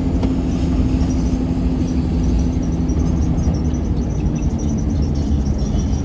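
Steady low rumble of a vehicle on the move, engine and tyres on the road, with a faint hum that fades out about halfway through.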